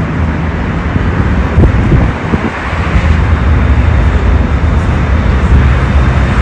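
Astra Imperio Metropolitan tram running: a steady rumble of wheels on rail and drive, with a couple of short knocks about two seconds in.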